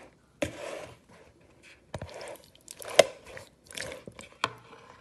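Raw chicken pieces in a yogurt and spice marinade being mixed in a plastic bowl: a run of wet squelching bursts with short pauses, and one sharp knock about three seconds in.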